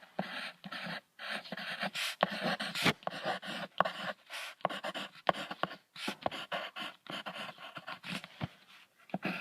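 Hyena sounds: a rapid, irregular run of short, harsh breaths and grunts.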